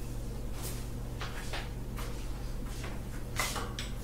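Soft rustling of suit fabric being handled and laid out, in several short brushes, over a steady low electrical hum.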